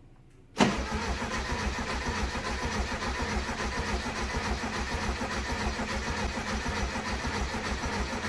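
A 1971 VW Beetle's air-cooled flat-four being cranked by its starter, turning over with a steady, even beat and not catching. It starts suddenly about half a second in. It is the sign of a fuel delivery problem that a new fuel pump, fuel lines and filter have not cured.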